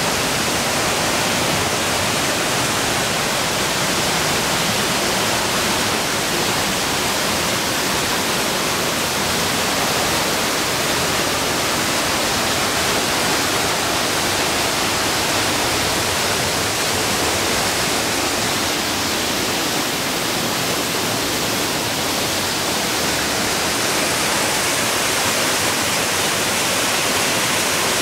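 Loud, steady rush of a mountain brook cascading over boulders and falling through a narrow rock gorge.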